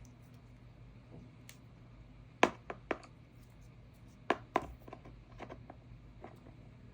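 Handling noise from small hard objects: a few sharp clicks and taps in two pairs a couple of seconds apart, then lighter ticks, over a low steady hum.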